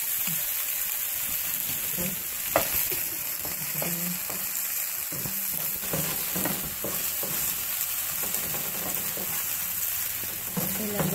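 Chopped green onions sizzling in a little oil in a frying pan, stirred with a wooden spoon that scrapes and knocks against the pan now and then.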